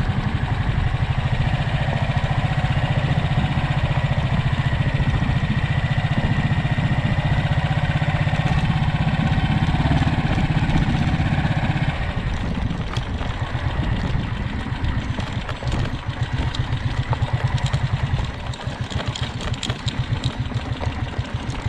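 A vehicle engine running while driving, steady for about the first twelve seconds, then a little quieter and more uneven.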